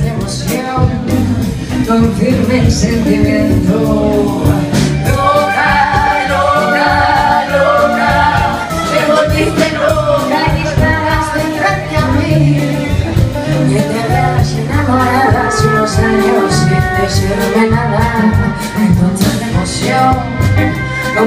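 Live band playing a song: a woman sings into a microphone over electric guitar, drum kit, violin and upright bass.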